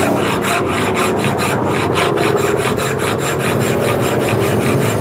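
Hand file rasping on a metal sewing-machine motor coupling part in quick, even back-and-forth strokes. The part is being filed down so that a new namda, which would not go on, will seat.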